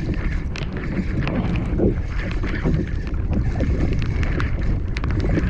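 Fishing reel drag buzzing steadily as a fast-running fish strips line off the reel, over heavy wind noise on the microphone.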